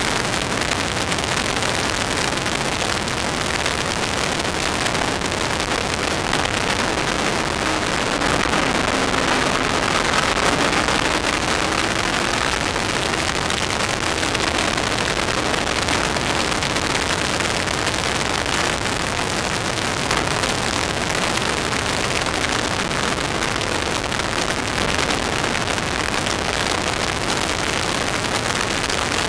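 Steady rushing wind noise over the microphone of an open-cockpit MK Indy R at track speed, which mostly covers the car's Kawasaki ZX-10R inline-four motorcycle engine. The engine comes through faintly, rising and falling in pitch about eight to twelve seconds in.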